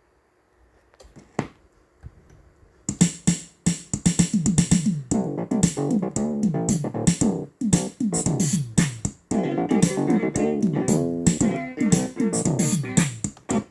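Music playing from a record on a Technics SL-5 linear-tracking turntable: a track with a steady drum-machine beat and keyboard, starting about three seconds in after a few faint clicks and cutting off abruptly near the end.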